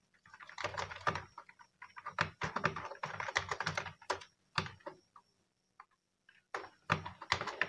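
Typing on a computer keyboard: quick flurries of keystroke clicks, stopping for about a second and a half past the middle, then starting again.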